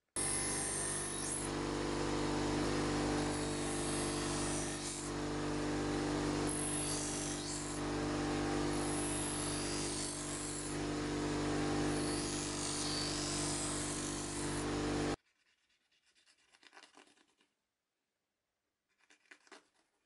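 Bench grinder running with a pocket-knife blade held against its wheel: a steady motor hum under a hiss from the wheel on the steel. It cuts off abruptly about three-quarters of the way through, leaving only faint rubbing near the end.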